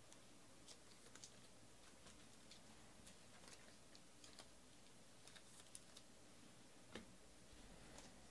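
Near silence with faint, scattered clicks and taps of trading cards being handled on a tabletop, one sharper tap about seven seconds in.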